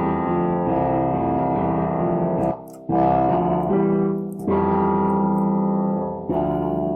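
Electronic keyboard part recorded into FL Studio, played back through reverb and an added delay effect: sustained chords that change every second or two.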